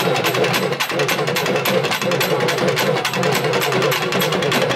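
A Tamil festival drum troupe playing a fast, dense, driving rhythm on shoulder-slung barrel drums, with small brass hand cymbals in the mix. A wavering tone sits above the drumming throughout.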